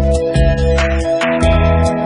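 Instrumental music with guitar over a bass line and a steady beat.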